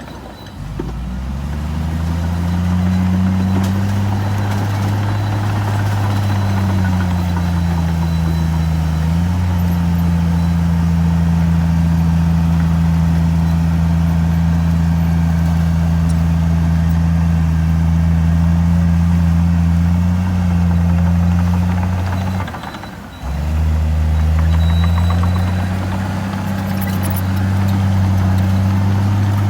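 Heavy earthmoving machine's diesel engine running hard. Its pitch climbs as it revs up about a second in, eases down a little a few seconds later and then holds steady. Near the end it drops out abruptly for a moment and climbs back up.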